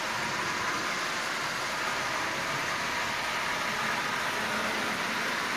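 Marx 112 toy switcher, refitted with a Marx single-reduction motor, running steadily on three-rail tubular track while pulling twelve Lionel cars: an even whir of motor and gearing with the running noise of the wheels on the rails.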